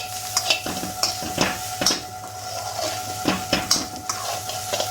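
A spoon scraping and clanking irregularly against a pan as rice, chicken and coriander are stirred together for biryani, with a light sizzle and a steady hum underneath.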